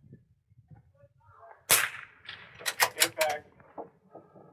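A .22 rimfire rifle fires one shot, a sharp crack about a second and a half in. About a second later comes a quick run of sharp metallic clicks as the bolt is worked for the next shot.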